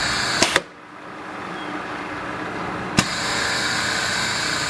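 Orbitform B-250 radial riveting machine cycling: its motor and spinning head whir steadily, cut off sharply after two clicks about half a second in, then run back up, with a click in the middle and two more clicks near the end as the next cycle finishes.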